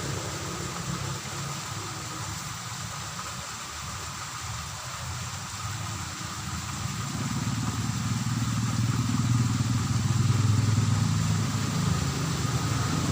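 A motor vehicle's engine running as it passes, its low hum growing louder from about halfway through and peaking near the end.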